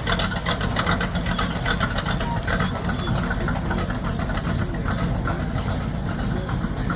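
Vehicle engine running steadily.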